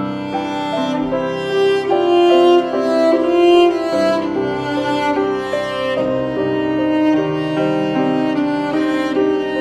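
Background music played on bowed strings, a violin melody of held notes over lower string parts.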